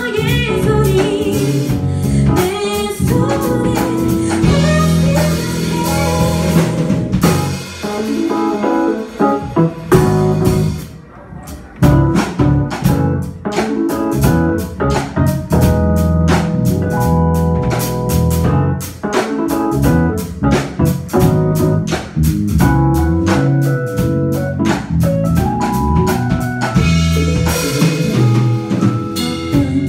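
Live pop band playing: female lead vocal with keyboard, bass guitar and drum kit. The band drops back briefly about eleven seconds in, then comes back in.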